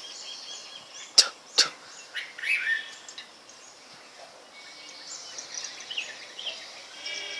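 Outdoor ambience with short, high chirps, and two sharp snaps about a second and a half apart, a little after a second in.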